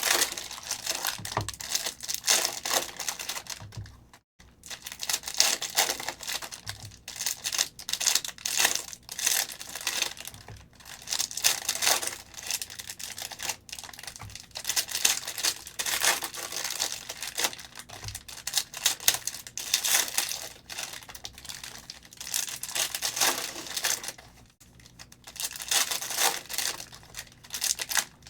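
Trading-card pack wrappers crinkling and tearing as packs of 2022 Prizm No Huddle football cards are ripped open and handled, in irregular stretches with a few short pauses.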